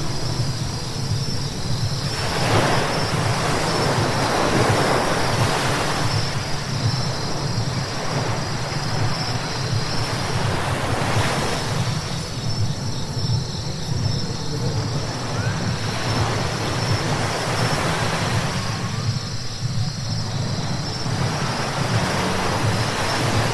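Car driving on a wet road: a steady low road rumble with tyre hiss and spray that swells and fades every few seconds, over a thin steady high whine.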